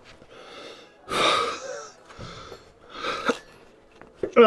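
A man's heavy, strained breaths and grunts of effort, three times, as he forces a silicone coolant hose onto its fitting.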